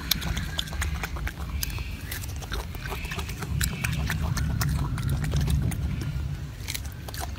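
Golden snub-nosed monkey chewing and smacking on fruit close to the microphone: a rapid, irregular run of wet clicks over a low steady rumble.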